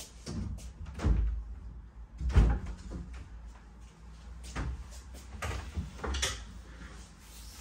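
Wooden wardrobe doors being opened and handled while clothes are hung inside, a series of separate knocks and thumps with the loudest about two and a half seconds in.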